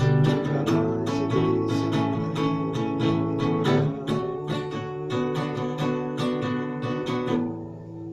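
Acoustic guitar (violão) strummed in a steady rhythm, about three to four strokes a second, playing the chords of a brega song. The strumming stops about seven seconds in and the last chord rings out.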